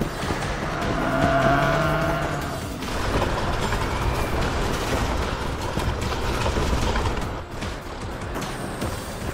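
Cartoon vehicle sound effects of a bulldozer's engine running as it drives, over background music, with a brief pitched sound about a second in.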